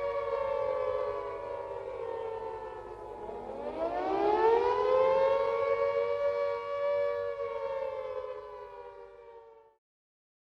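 Civil defense sirens sounding a steady tone, the all-clear signal. About three seconds in, one siren winds back up from low pitch to join the others. Near the end the sirens wind down and fade out, closing the two-minute sounding.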